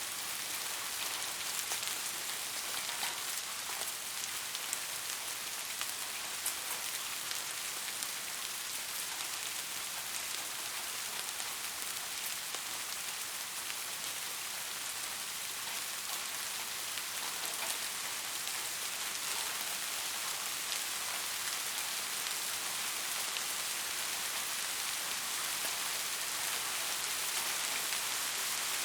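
Steady rain falling: an even hiss with a scatter of small drop ticks throughout.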